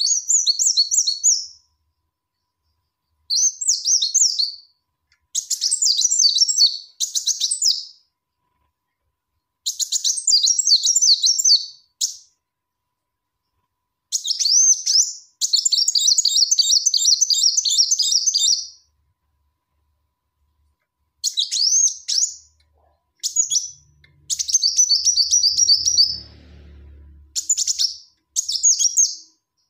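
Female kolibri wulung sunbird calling the male: about ten short phrases of rapid, high, thin chirps, each lasting one to three seconds, separated by silent gaps. A faint low rumble sits beneath the calls a little past the middle.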